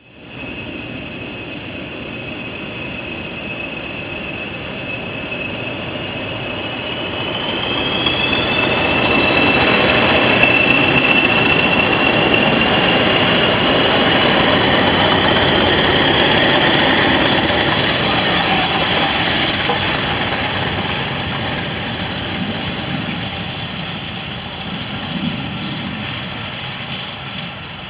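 A train of a pair of English Electric Class 20 diesel locomotives, LNER B1 steam locomotive 61306 Mayflower and coaches passing close by, its rumble swelling as the locomotives go past and easing as the coaches run away. Over it runs a long high steady whine that slowly rises in pitch, and a second, higher whine comes in about two-thirds of the way through.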